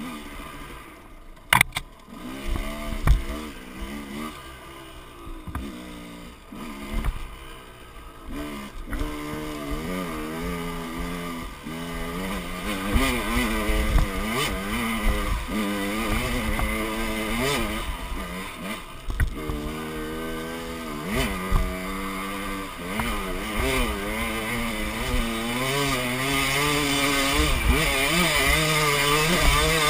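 Dirt bike engine revving up and down over and over as it is ridden along a rough trail, with a few sharp knocks in the first few seconds. It grows louder in the second half.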